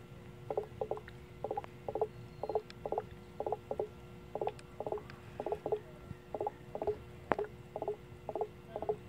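HHO (hydrogen-oxygen) gas bubbling from a hose into an inverted water bottle submerged in a tub of water, a bubble blooping up about twice a second, over a steady faint hum.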